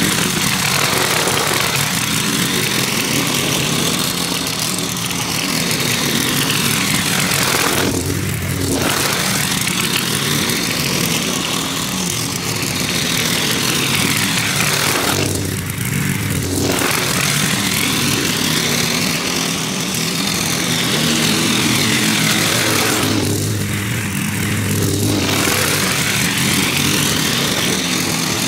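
Gas walk-behind lawn mower running steadily while being pushed through long grass, its sound shifting a little with each pass back and forth about every eight seconds.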